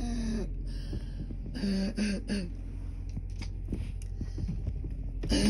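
A person's deep, barking cough: harsh voiced coughs at the start and a broken run of three about two seconds in, with another sharp burst near the end. The cough is straining a sore throat.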